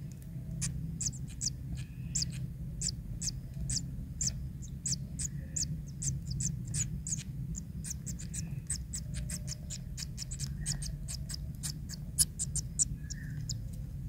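Kingfisher nestlings begging in the nest burrow: a rapid series of short, sharp, very high-pitched peeps, a few a second, while a parent feeds them fish. A steady low rumble runs underneath.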